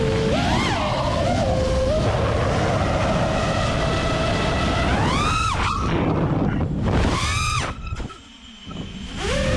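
Brushless motors and propellers of a 6S FPV freestyle quadcopter (ImpulseRC Apex, 1700KV motors) whining steadily, with the pitch sweeping sharply up on throttle punches about five and seven and a half seconds in. The sound drops away as the throttle is cut about eight seconds in, then spools back up near the end.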